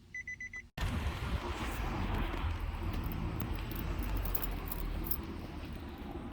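Nissan 370Z / G37 dash chime beeping four times quickly as the ignition comes back on. After a sudden break, a steady loud rushing noise with a low rumble follows, typical of the electric radiator cooling fans running during the car's self-test mode, with faint ticks over it.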